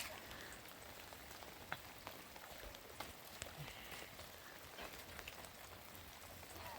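Rain falling: a faint steady hiss with scattered single drops ticking.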